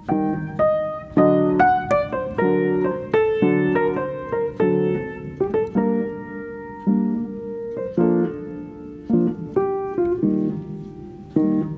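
Background piano music: a gentle melody over chords, each note struck and fading.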